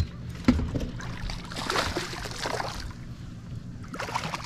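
Water splashing and sloshing as a hooked largemouth bass thrashes at the surface beside a boat, over a low steady hum.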